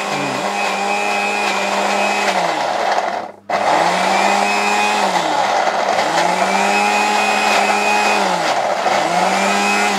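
Jaipan mixer grinder motor grinding garlic cloves in a small stainless steel jar, pulsed on and off: about four runs, each rising in pitch as it spins up and dropping as it slows, with one brief full stop about three seconds in. The garlic is being ground to a paste.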